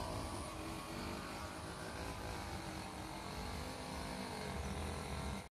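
Steady low outdoor rumble and hiss, with a faint hum in it, that cuts off suddenly at the end.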